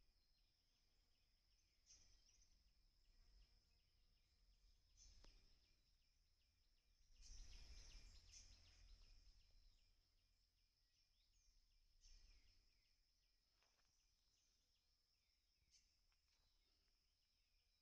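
Faint outdoor ambience: a steady high-pitched insect trill with a fast pulse, short bird chirps every few seconds, and a brief low rumble about seven seconds in.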